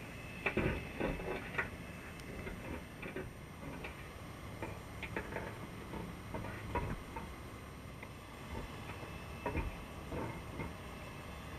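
Underwater, a Dungeness crab's legs and claws clicking and tapping irregularly on the wire mesh floor of a crab pot, in small clusters over a steady hiss, heard through a waterproof camera housing.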